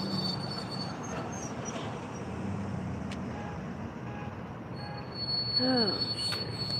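Steady street traffic rumble and hiss. A thin high whine stops about a second in and comes back about five seconds in, and there is a brief vocal sound near the end.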